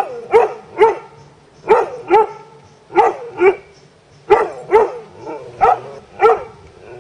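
Collie barking repeatedly at a garter snake, about a dozen sharp barks, mostly in quick pairs.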